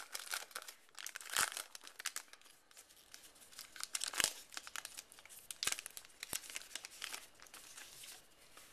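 Wrapper of a 2012 Topps Heritage baseball card pack crinkling and tearing as it is opened by hand: irregular crackles with a few sharper snaps.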